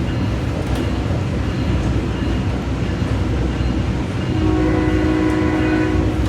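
SMART commuter train running along the track with a steady rumble. About four seconds in, the train's horn sounds one steady note for about two seconds.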